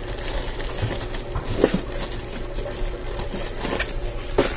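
Plastic-wrapped instant ramen packets and noodle cups rustling and crinkling as a hand moves them about on a wooden shelf. There is a knock about a second and a half in and a sharper knock near the end. A steady machine hum runs underneath.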